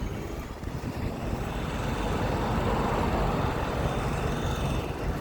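2018 Ford F-150's 5.0 V8 engine running with the truck under way on a cold start, swelling a little in level about two seconds in. The owner is recording it for a ratchet-like rattle on throttle release and suspected piston slap, though no distinct knock stands out here.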